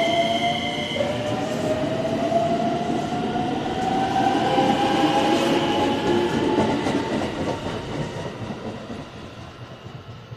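JR West 227 series electric train pulling away from the platform, its traction motors whining in a steadily rising pitch as it accelerates over rumbling wheel and rail noise. A steady high tone stops about a second in, and the sound fades over the last couple of seconds as the train leaves.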